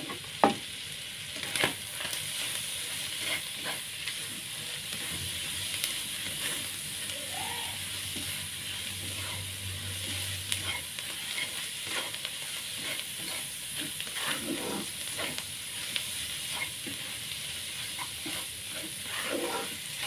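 Pieces of intestine and green chili stir-frying in a pan with seasoning just added: steady sizzling, with a spatula scraping and knocking against the pan throughout, the sharpest knock about half a second in.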